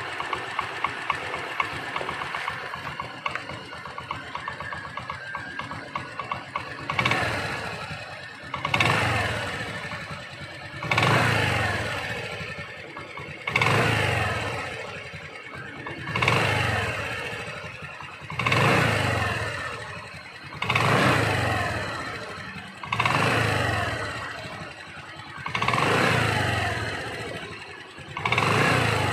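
TVS 110 motorcycle's small single-cylinder engine idling, then, from about seven seconds in, revved in short throttle blips about every two and a half seconds, each rising sharply and sliding back down. It is being revved little by little to draw gasoline through a freshly fitted inline fuel filter while it is checked for leaks.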